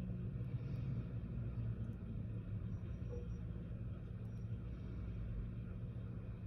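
Steady low hum with no sudden sounds.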